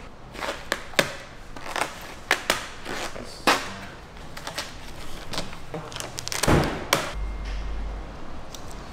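Vinyl wrap film being stretched, laid and squeegeed onto a car body: irregular crackles and sharp snaps as the film pulls and lifts, with a longer scraping swish about six and a half seconds in.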